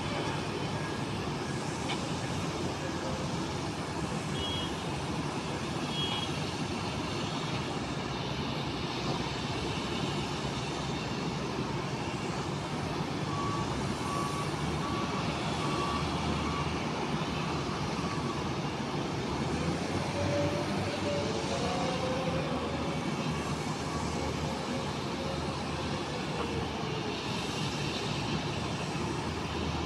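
Steady airport apron noise: the even rumble and hiss of jet airliners and ground traffic. A run of short, evenly spaced beeps sounds through the middle.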